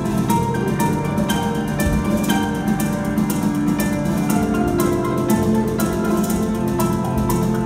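Instrumental music of plucked strings over held low notes, with a quick run of plucked notes.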